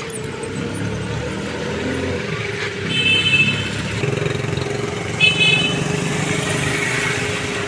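Road traffic: a vehicle engine running steadily, with two short horn beeps about three and five seconds in.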